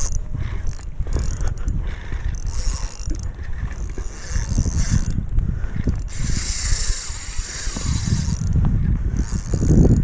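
Spinning reel being cranked, its gears whirring and clicking as the line is retrieved.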